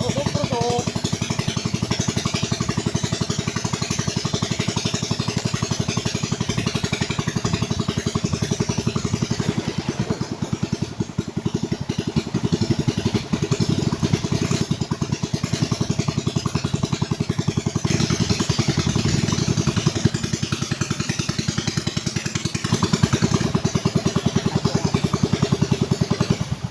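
Small boat engine running steadily with a rapid, even firing beat, fading away at the very end.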